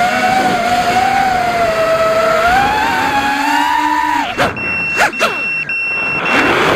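FPV racing quadcopter's brushless motors and propellers whining in flight, the pitch drifting with throttle, with wind noise on the onboard microphone. About four seconds in the throttle is chopped and blipped, giving a few quick rising and falling sweeps, before the steady whine picks up again near the end.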